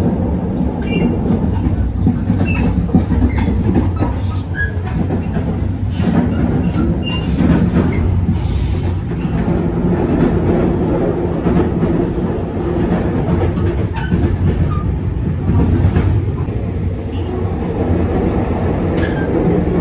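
Steady running rumble of a JR West 287 series limited-express electric train, heard from on board while moving. Faint clicks of the wheels over rail joints come through now and then.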